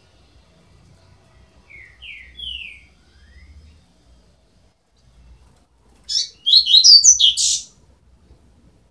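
Double-collared seedeater (coleiro) chicks calling: three soft, short rising peeps about two seconds in, then a loud, rapid cluster of high chirps lasting about a second and a half near the end.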